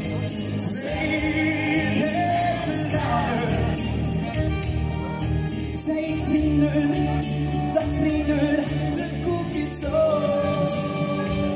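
A man singing live into a microphone over backing music with a steady beat.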